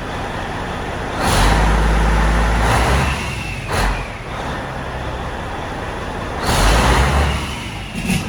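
Large truck engine running, revved up twice: once about a second in for under two seconds, and again near the end for about a second.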